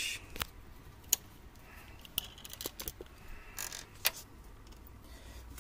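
Light handling noise: a scattered series of short sharp clicks, about seven in all, with brief rustles between them, as a plastic-wrapped parcel and the recording phone are handled.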